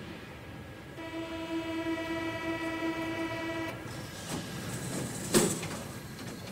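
Subway train sound effect: a steady, single-pitched horn-like tone for about three seconds, then the rushing noise of the train with a sharp clack about five seconds in.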